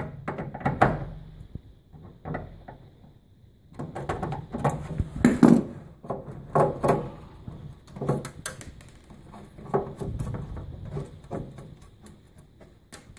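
Irregular knocks, clicks and scrapes of hands and a tool working on a plastic cabinet panel while its side screws are taken out. There is a quieter pause about two seconds in.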